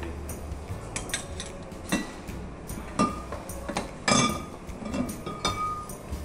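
Glassware and metal bar utensils clinking and knocking against each other and on a steel counter: about ten separate clinks, some ringing briefly, the loudest about four seconds in.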